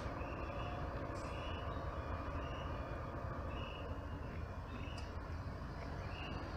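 Large tour-coach diesel engines running low and steady as the coaches maneuver, with a short high beep repeating about once a second over them.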